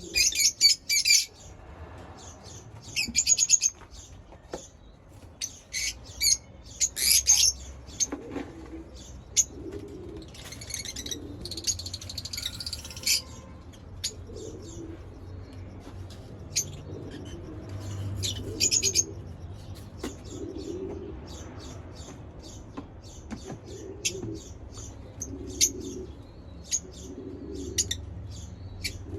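Lovebirds chirping: repeated bursts of rapid, shrill chirps, loudest in the first few seconds and again near the end, over a lower pulsing sound and a steady low hum.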